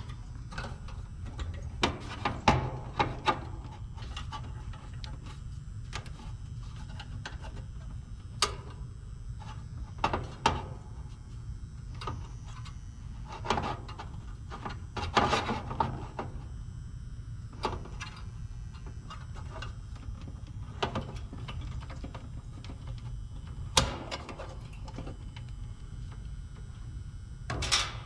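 Scattered clicks, taps and light rattles of wires, terminals and a new run capacitor being handled and fitted into the electrical panel of an air-conditioning condenser, over a steady low rumble. The sharpest clicks come about two seconds in and again near the end.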